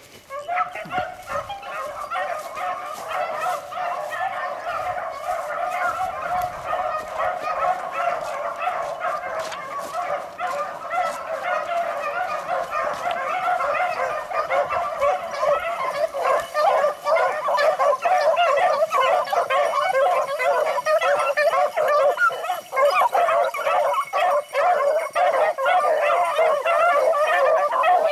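A pack of beagles baying together in a continuous, overlapping chorus while running a rabbit on its scent trail, growing louder through the second half.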